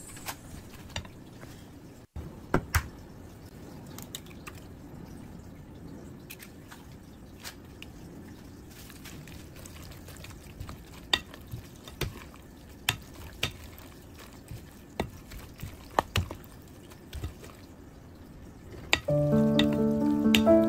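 A metal utensil clicking and scraping against a glass mixing bowl as shredded napa cabbage is tossed and stirred, with a soft wet rustle of the vegetables under irregular sharp clinks.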